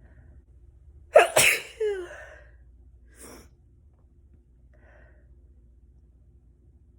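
A person's single loud, voiced sneeze about a second in.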